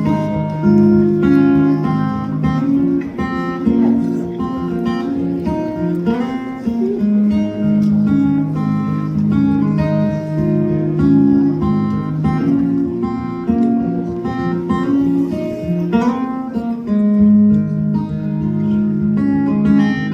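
Acoustic guitar playing a song's instrumental intro, strummed and picked in a steady pattern.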